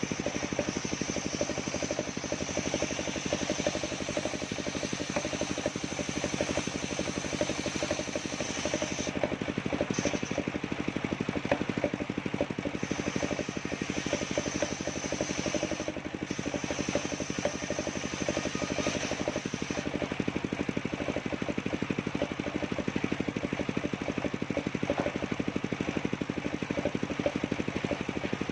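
Engine of a portable circular-saw sawmill running steadily, with a high whine above it that drops out briefly a few times.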